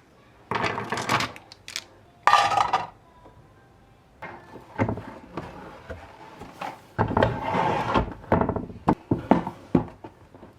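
Household handling noises: a series of rubs, scrapes and light knocks of objects being moved and set down, irregular and bunched, busiest in the second half.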